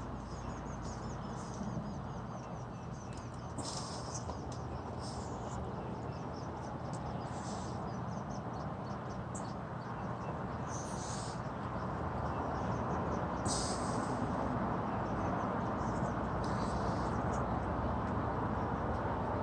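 Steady outdoor background rumble that grows a little louder about twelve seconds in, with short high-pitched chirps or crunches every few seconds.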